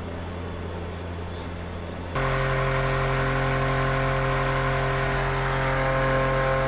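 Electric motor hum, as from a ceiling fan, steady throughout. About two seconds in it jumps abruptly to a louder hum with several steady tones.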